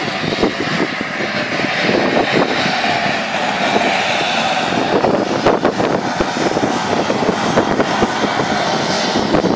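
Engines of a small turboprop plane running at take-off power during its take-off roll, a steady, loud noise.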